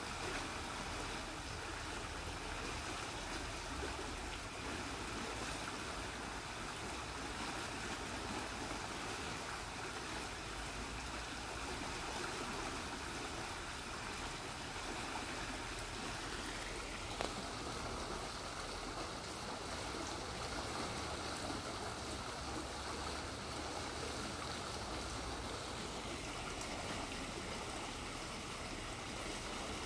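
Shallow, fast-flowing stream rushing and bubbling as it churns around roots, a steady, even wash of water.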